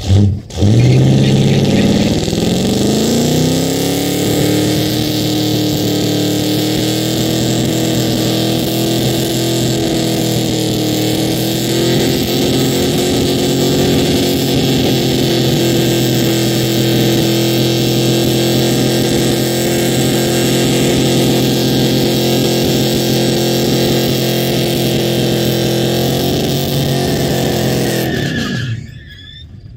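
1967–72 Chevrolet pickup doing a long burnout. The engine revs up over the first couple of seconds, is then held at high revs nearly level for about twenty-five seconds while the rear tire spins and squeals, and the revs drop off just before the end.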